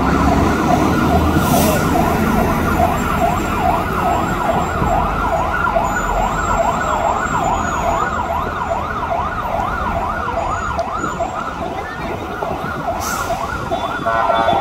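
Fire engine siren in a fast yelp, its pitch sweeping up and down several times a second, over the low rumble of engines and street traffic.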